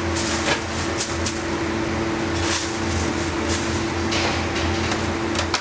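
Steady hum of running bakery machinery with a low, pulsing throb about twice a second, under short bursts of rustling and light clicks from dough and plastic sheeting being handled on the table.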